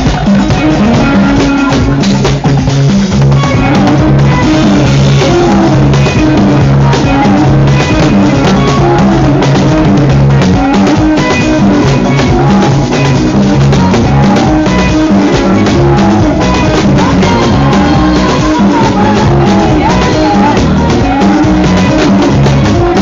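Loud music with a steady drum beat and pitched instruments, the top end cut off so it sounds dull.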